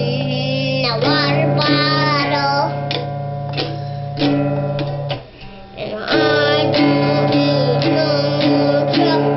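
A small child singing a made-up song, his wavering high voice over guitar music. Both drop away briefly a little after five seconds in, then carry on.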